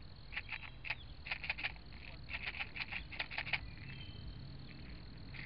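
Frog calling: a run of short, sharp notes in quick clusters for about three seconds, then stopping.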